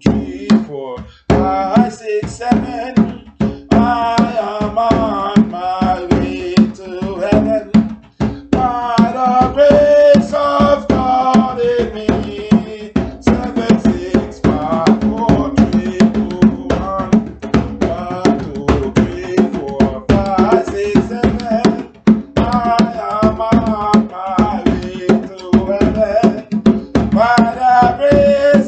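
A man singing a gospel song over a steady drum beat.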